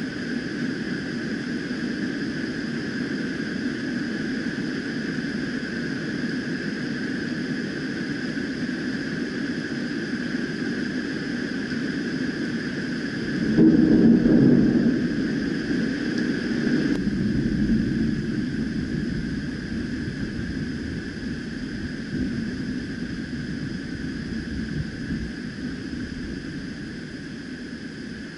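Thunder from a nearby storm: a low rumble sets in suddenly about halfway through and rolls away slowly over several seconds, above a steady background hiss.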